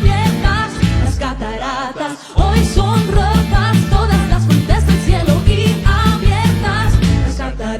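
Worship band music with a steady beat and heavy bass under a wavering melody line. The low end drops out briefly about two seconds in, then the full band comes back in.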